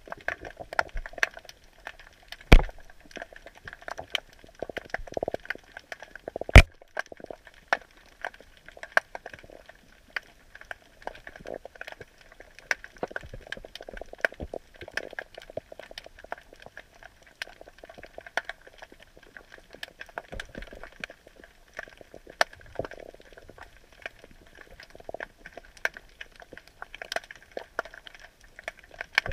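Dense, irregular underwater crackling and clicking, heard through a camera submerged in a crab drop net. Two louder knocks stand out, about two and a half seconds in and again about four seconds later.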